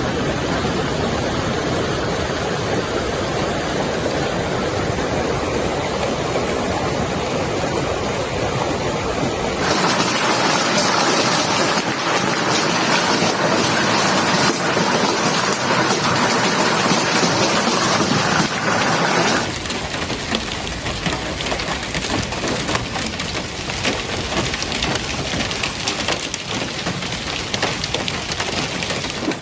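Heavy rain and hail pelting down in a storm, a dense, loud hiss of falling water and ice. The sound changes abruptly twice, about ten and about twenty seconds in; the last stretch carries many sharp ticks of impacts.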